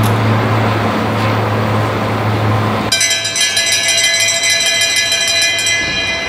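Steady noise with a low hum, then about three seconds in a bell is rung rapidly and continuously for a few seconds. It is the bell for the final lap of the two-lap time trial.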